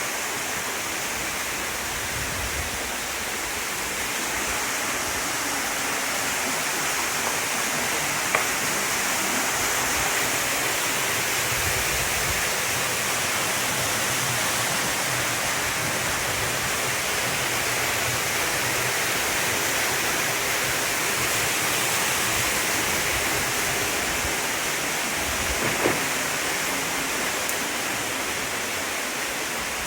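Gyōkō Falls running: a steady, continuous rush of falling water, with two brief knocks, one about eight seconds in and one later on.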